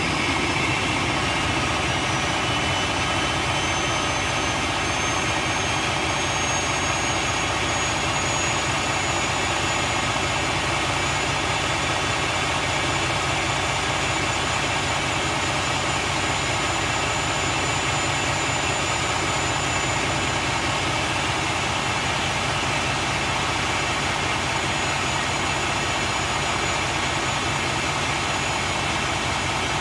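Diesel engine of a 2007 Freightliner Columbia semi idling steadily while its air system builds pressure to fill the rear suspension air bags. A faint high whine rises slowly over the first several seconds, then holds steady.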